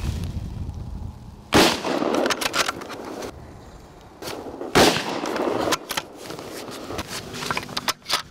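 Two hunting-rifle shots about three seconds apart, each a sharp report followed by a fading echo, with a few lighter clicks afterwards.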